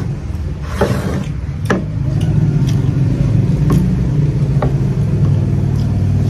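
An engine runs steadily with a low hum that grows louder about two seconds in. A few light clicks, roughly one a second, sound over it.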